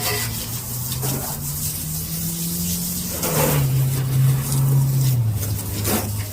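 A motor vehicle engine running, its low note stepping up in pitch and then dropping twice, like gear changes, over a steady hiss of rain.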